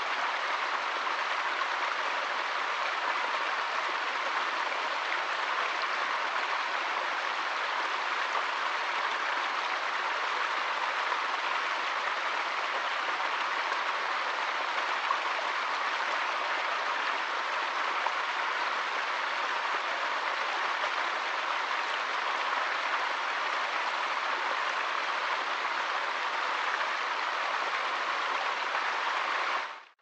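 Small stream splashing over rocks in a little cascade, a steady, even rush of water that fades out at the very end.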